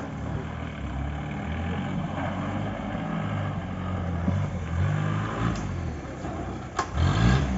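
Mahindra jeep engine revving up and down in repeated swells as it crawls over a dirt mound under load. There is one sharp knock near the end.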